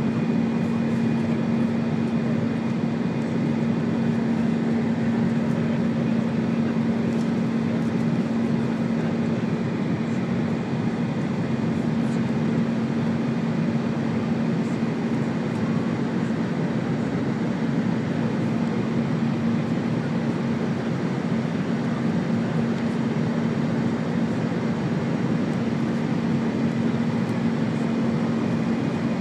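easyJet airliner's jet engines and airflow during take-off and climb, a steady rushing noise with a constant low hum underneath, as heard from inside the cabin.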